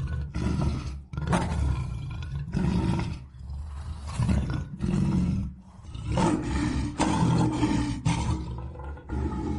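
Lion roaring: a series of deep, repeated calls, roughly one a second, with short breaks between them.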